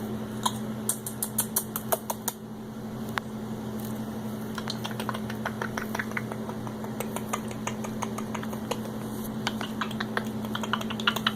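Irregular light clicks and taps, some in quick runs, over a steady low hum.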